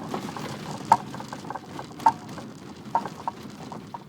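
Road and engine noise inside a moving LADA Kalina, with a few sharp knocks at uneven intervals, about four in all.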